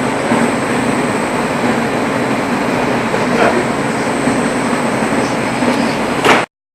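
Loud, steady noise with a faint high whine on top, cut off abruptly by a click near the end.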